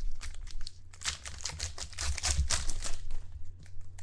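Trading cards and their plastic packaging being handled: quick crinkling rustles and light clicks, busiest through the middle and thinning out near the end.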